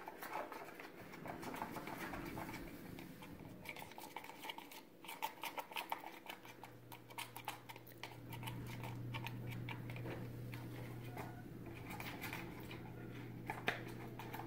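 A spoon stirring sticky slime mixture of glue, paint and borax water in a plastic cup, giving soft irregular scraping and clicking against the cup. A steady low hum comes in about six seconds in.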